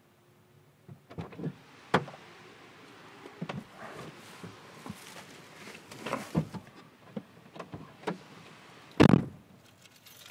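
Rain drumming on a car's roof and windshield, heard from inside the car: a light hiss with irregular taps of heavy drops. One louder thump comes near the end.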